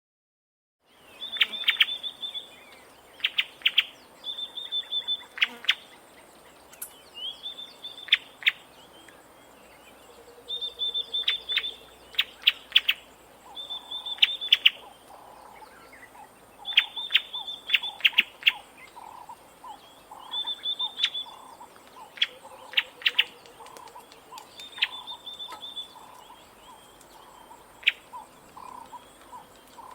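Bleating warbler (a camaroptera) calling: a drawn-out high note followed by a quick run of sharp snapping clicks, repeated every two to three seconds. From about halfway, a faint rapid pulsing lower call runs underneath.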